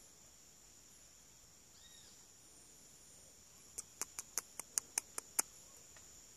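Steady high-pitched drone of insects, with a quick run of about eight sharp clicks lasting about a second and a half, starting near the middle.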